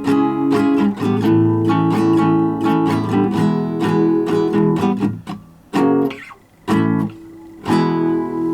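Guitar strumming chords in a steady rhythm, breaking off about five seconds in into a few single strums with pauses between them.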